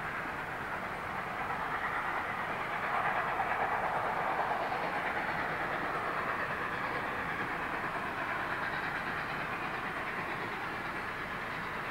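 Train running on the track out of sight: a steady rushing rumble that swells about three seconds in and slowly eases off.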